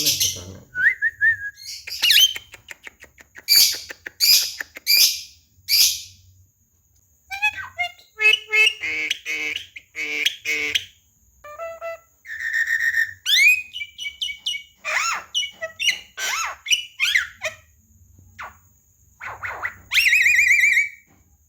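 A pet jalak kebo myna calling in a varied run of gliding whistles, harsh squawks and chattering notes, separated by short pauses. Near the end comes a fast trilling whistle about a second long.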